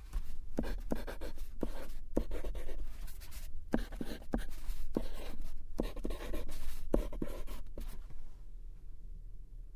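Close-up tapping and scratching on a diamond painting canvas and its resin beads: irregular sharp taps mixed with scratchy rustling, easing off near the end.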